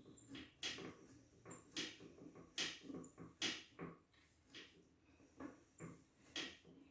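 Faint, irregular light clicks and scrapes of plastic toilet fill-valve and supply-hose parts being handled and fitted, with a short lull about two-thirds of the way through.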